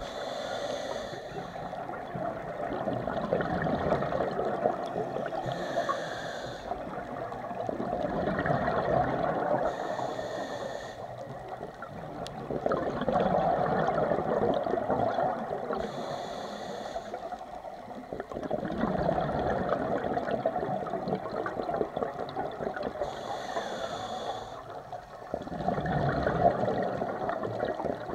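Scuba diver breathing through a regulator underwater: a short hiss of each inhalation followed by a longer bubbling rush of exhaled air, repeating about every five seconds.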